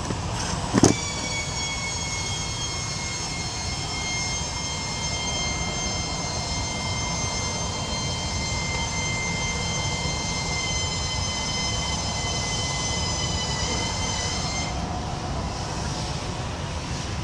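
Steady mechanical rumble with a sharp knock about a second in, then a high machine whine that holds for about fourteen seconds, sinks slightly in pitch and stops near the end.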